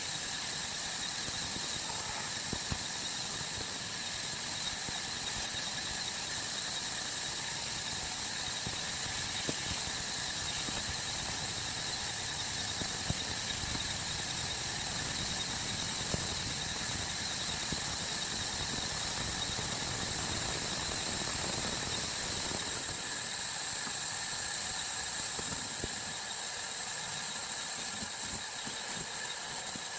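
Sawmill saw cutting wood: a steady, high-pitched squeal over the running machinery. About three-quarters of the way through, the sound thins out and turns more uneven.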